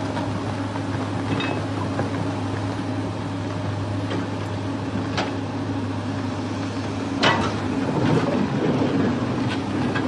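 A steady engine drone with a few sharp knocks; about seven seconds in a louder, rougher rumble with clatter sets in.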